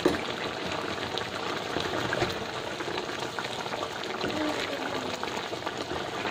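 Thick chicken curry sauce bubbling and sputtering in a non-stick pan, with a wooden spatula stirring it. The sauce's water has nearly cooked off, so it is at the reducing stage.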